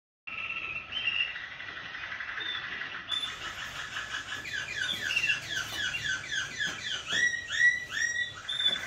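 Waterslager song canaries singing. Held rolling notes give way to quick series of falling whistled notes, about four or five a second, which get louder near the end.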